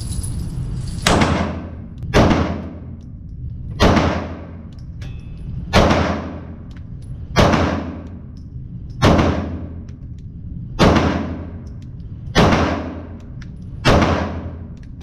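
Handgun fired slowly at a target, about nine shots evenly paced every second and a half to two seconds, each ending in a short echoing tail.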